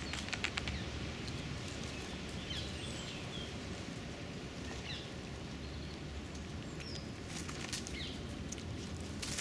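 Outdoor park ambience: a steady low rumble with scattered short bird chirps, and a few sharp clicks in the first second.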